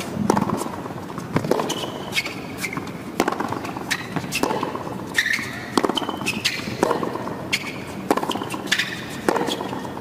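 Tennis rally on a hard court: sharp racket strikes and ball bounces about once a second, with short high sneaker squeaks between them.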